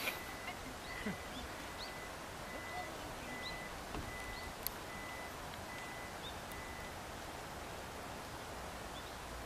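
Open-air background hiss with faint, scattered short bird chirps and a faint high tone repeating in short dashes that stops about seven seconds in. A single sharp click comes about halfway through.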